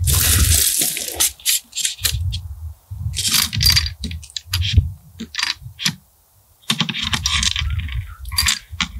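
Metal rifle cartridges clinking and scraping against each other and their box as they are handled, in irregular bursts with a short pause about six seconds in, with a low rumble of handling noise under some of them.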